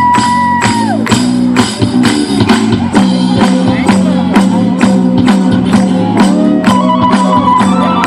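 Music with a steady beat: sharp percussion hits about two a second over a repeating bass line and held melody notes.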